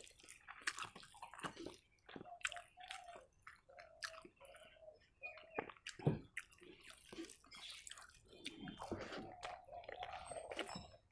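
Close-up chewing of rice and curry, with wet mouth smacks and clicks.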